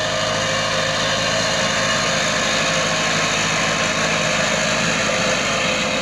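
Farm tractor's diesel engine running steadily under load as it pulls a potato digger through the soil.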